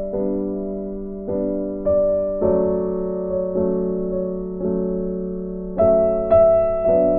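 Background music of slow, soft piano: single notes and chords struck about once a second and left to ring and fade.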